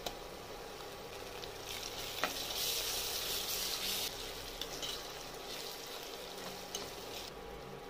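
Onions and ginger garlic paste sizzling in hot oil in an aluminium pressure cooker while a steel spoon stirs them, the sizzle louder for a second or two in the middle, with a few sharp clicks of the spoon against the pot.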